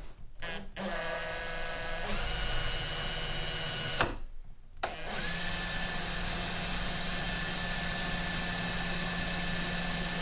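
Power drill boring a small pilot hole through a wooden dinghy bulkhead: the motor spins up to a steady whine, stops about four seconds in, then starts again and runs steadily.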